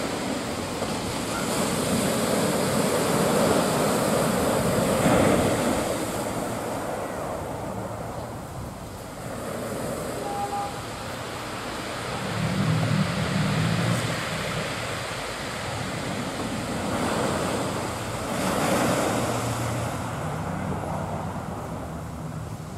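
Sea waves breaking and washing onto the beach, a steady hiss that swells and fades with each wave.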